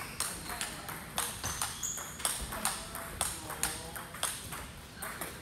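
Table tennis rally: a celluloid-type plastic ball clicking off rubber paddles and the table top in a steady rhythm, about three clicks a second, as forehand loops are blocked back.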